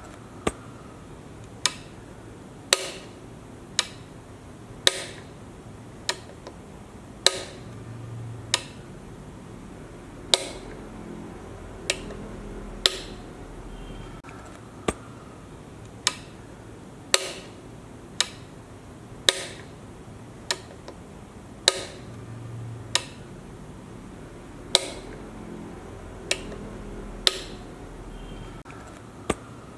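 Electrical power switch being flicked over and over, a sharp click roughly once a second.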